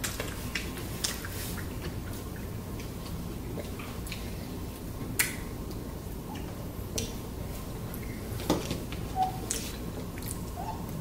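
Close-up eating sounds: chewing and wet mouth smacks with scattered sharp clicks, over a steady low hum.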